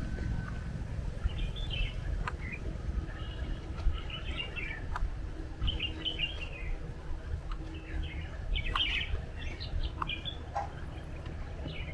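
Small birds chirping in short bursts of quick twittering notes, one burst every second or two, over a steady low rumble.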